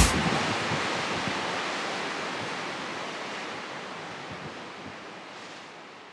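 Steady rushing wind and surf noise that fades out slowly.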